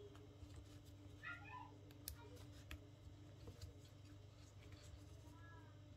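Near silence: quiet room tone with a few faint clicks, and two faint, brief, high-pitched calls in the background, one about a second in and one near the end.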